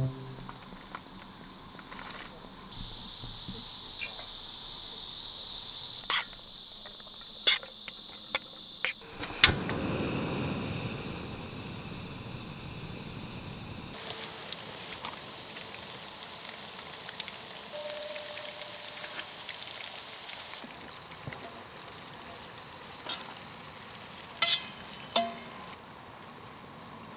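A steady, high-pitched chorus of summer insects such as crickets, with a few brief clicks and knocks along the way.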